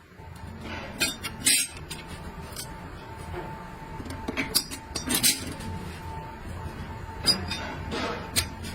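Metal transmission parts being handled, clinking and knocking together in a handful of sharp, irregular strikes.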